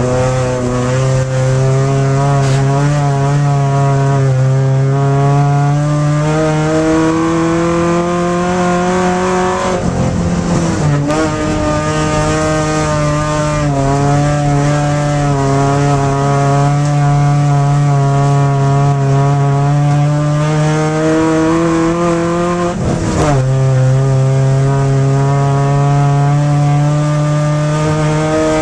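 Ice-racing car's engine heard from inside the cabin, pulling hard at steady high revs with its pitch slowly climbing. About ten seconds in and again about twenty-three seconds in, the revs drop sharply and then pick back up.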